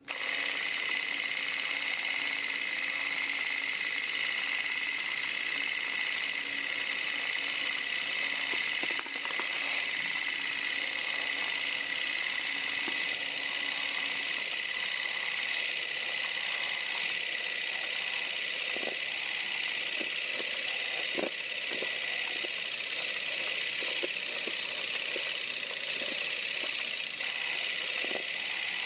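Film projector running: a steady whir and hiss, with a low hum that drops out about halfway and scattered clicks and crackles in the second half.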